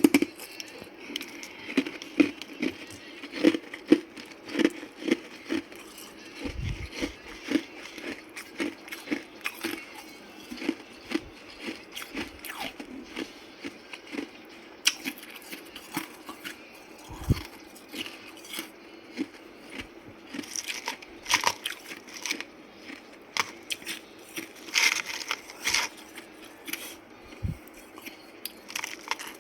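Ice being bitten and chewed close to the microphone: a long run of sharp, crackling crunches in quick succession.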